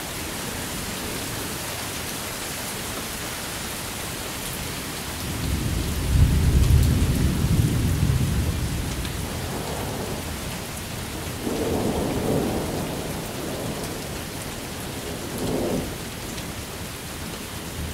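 Steady rain falling during a thunderstorm, with a long, low roll of thunder about six seconds in and a few shorter, weaker rumbles after it.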